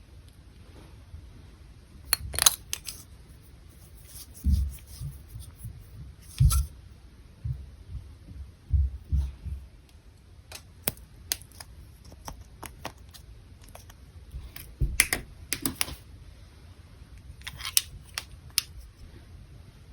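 Clear slime being pressed and squished by hand, giving irregular crisp clicks and pops with a few soft low squelches.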